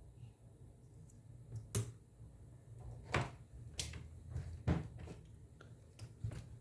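Four or so scattered light clicks and taps from test probes and small tools being handled on an electronics workbench, over a faint low hum.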